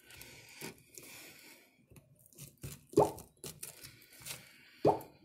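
Scraping and rustling of hands and a thin tool working at the Redmi Note 8's glued-in battery to loosen it from the frame. Two sharp knocks stand out, about three seconds in and near the end.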